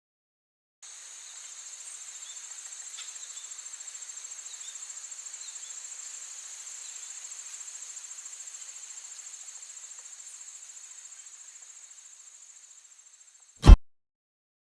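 Insects trilling steadily in a high, finely pulsing buzz that fades out near the end. A single sharp click, the loudest sound, comes just before the end.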